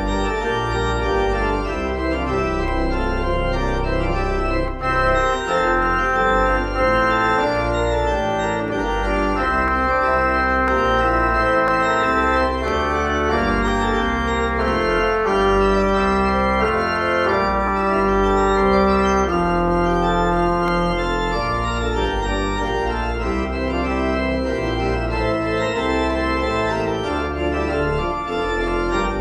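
Organ playing the postlude after the benediction: sustained full chords over a continuous low bass, the held notes changing every second or two.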